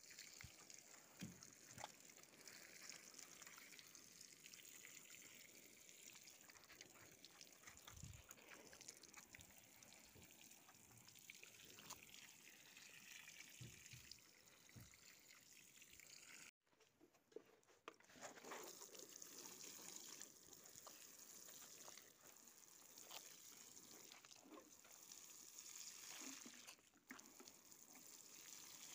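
Faint sprinkle of water from a plastic watering can's rose falling onto soil and seedlings, with a few soft knocks from the can being handled. The sound breaks off briefly about halfway through.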